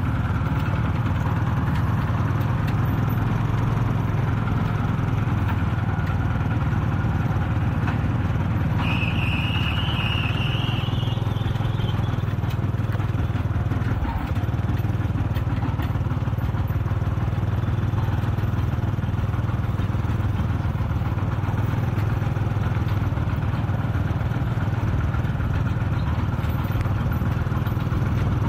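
Single-cylinder diesel engine of a Kubota RT-120 Plus two-wheel tractor running steadily while it tows a loaded trailer. A brief high squeal rises in pitch about nine seconds in.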